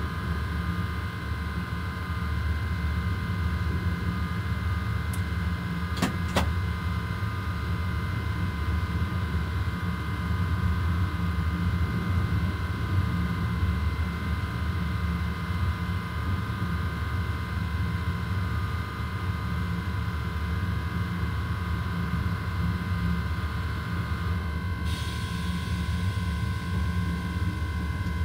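Cab of a BB 27300 electric locomotive running at speed: a steady low rumble of the running gear with several steady whining tones over it. Two sharp clicks come about six seconds in, and a hiss joins in a few seconds before the end.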